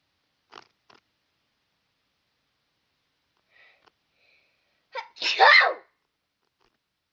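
A person sneezing once, loudly, about five seconds in, after a few faint short sounds.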